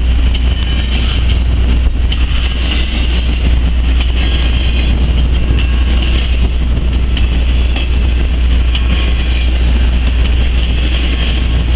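Intermodal freight train of container and trailer flatcars rolling past: a steady rumble of steel wheels on rail, with scattered light clicks.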